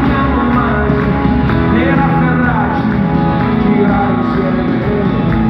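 Live pop-rock band playing loudly with a lead vocal, heard from the stands of a large arena.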